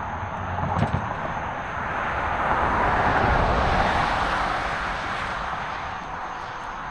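Steady rushing roar of water pouring through Taylorsville Dam, swelling a little midway, with a brief knock about a second in.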